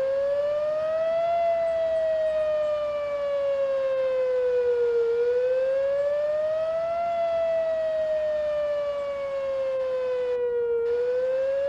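Whelen 4004 electronic outdoor warning siren sounding a wail tone: a single pitch that rises quickly and falls more slowly, repeating about every five and a half seconds.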